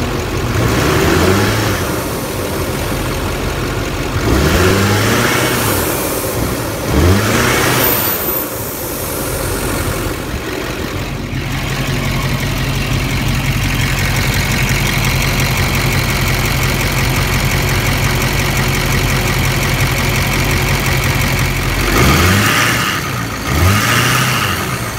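Duramax 6.6-litre V8 turbodiesel engine being revved in short blips, each rising and falling in pitch within about a second, several times, with a steadier stretch of even running in the middle.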